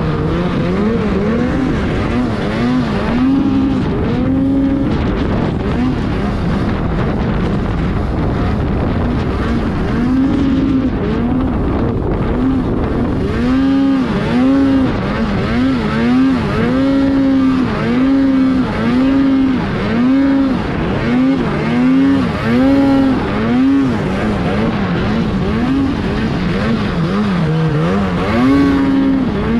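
Arctic Cat mountain snowmobile engine revving up and down again and again while riding through deep powder snow, the throttle worked on and off about once a second through the middle and latter part.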